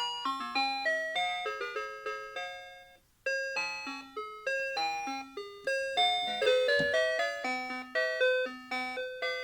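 Citizen 4RM753 Ghibli melody alarm clock playing its electronic alarm tune: a melody of bell-like notes, each struck sharply and fading, with a short break about three seconds in before the tune starts again.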